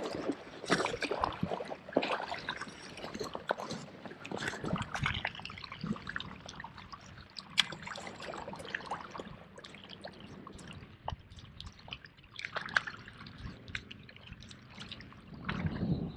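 Small waves lapping and splashing against a rocky lake shore, with scattered irregular clicks and ticks. Near the end a louder low rumble comes in.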